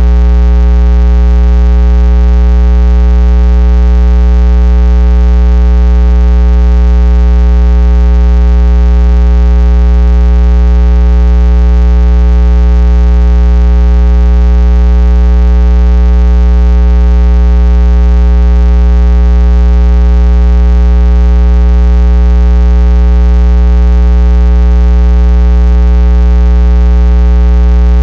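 Loud, steady electrical mains hum with a stack of overtones, strongest at its low fundamental, unchanging throughout.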